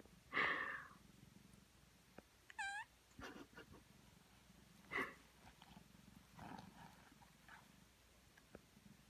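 Cat purring steadily, with a few short meows and a chirp; the loudest call comes about half a second in.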